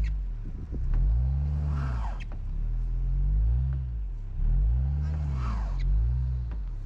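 A car stuck in deep snow, its engine revving up and dropping back over and over while the wheels spin. A rising whine comes with the strongest revs.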